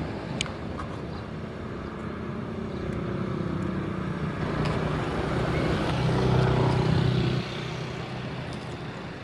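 Motor vehicle engine hum mixed with outdoor traffic noise, building to a peak about six to seven seconds in and dropping off suddenly.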